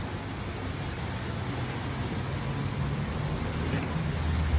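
Steady low rumble and hum in the background, with no clear event standing out.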